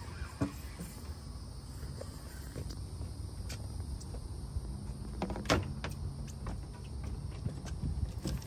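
Steady low wind rumble on the microphone, broken by a few sharp knocks; the loudest knock comes about five and a half seconds in.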